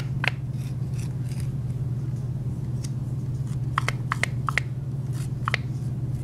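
Short scratchy ticks of a tool scoring and slipping the rim of a clay coil bowl: one about a quarter second in, a quick cluster around four seconds and another near five and a half. A steady low hum runs underneath.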